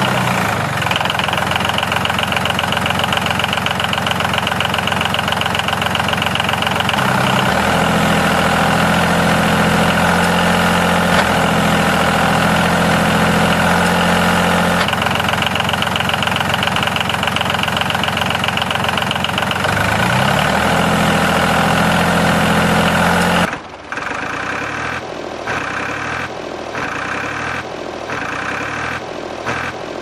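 An engine running steadily, with a shift in pitch about seven seconds in and a brief slide about twenty seconds in. Near the end it stops and gives way to a quieter sound that pulses on and off about once a second.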